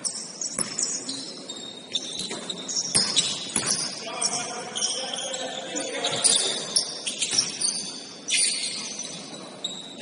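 Basketball shoes squeaking on a gym floor during play: many short, high squeaks at shifting pitches, with a few knocks from the ball and players' voices underneath in a large hall.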